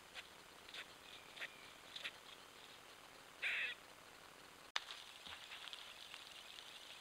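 Faint short animal calls in woodland: several brief chirps, then a louder call about three and a half seconds in. A click follows shortly after, then faint crackling.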